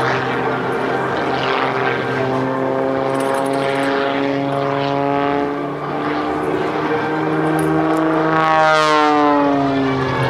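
Modified Pitts S-2B aerobatic biplane's piston engine and propeller droning steadily overhead, the pitch rising a little and then falling clearly near the end as the plane manoeuvres.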